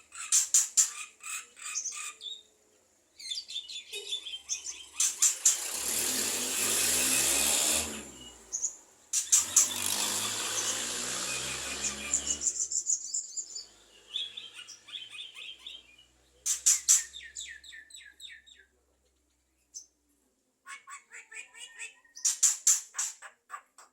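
Javan myna calling: bursts of rapid, clicking chatter, with two long harsh, hissing stretches of about three seconds each partway through.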